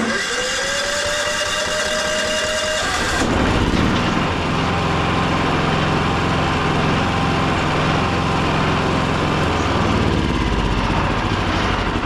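Yamaha EF4500iSE generator's engine running smoothly now that the rough running is cured. Its pitch climbs quickly in the first second and then holds; about three seconds in the sound changes to a lower, fuller steady running note.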